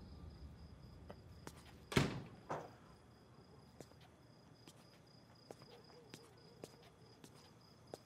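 Crickets chirping steadily in a high, pulsing trill. About two seconds in comes a heavy thud with a smaller one just after, then faint scattered footsteps.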